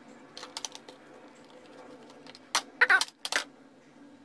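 Hands working modelling dough in a plastic Play-Doh mould: a few short clicks and taps, with the loudest cluster about three seconds in.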